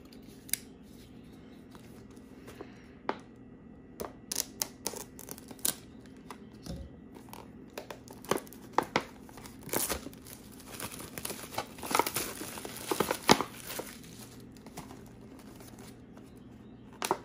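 Instant noodle packaging being torn open by hand: irregular crinkles and short rips, sparse at first, busiest a little past the middle, then dying away near the end.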